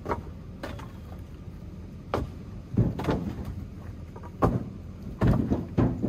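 Split firewood knocking and clattering as pieces are dropped and stacked onto a woodpile: about eight sharp wooden knocks at irregular intervals, over a steady low rumble.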